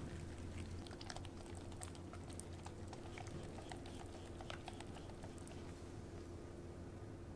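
Wire whisk stirring chocolate cake batter in a glass bowl: faint, irregular small clicks of the tines against the glass. A steady low hum runs underneath.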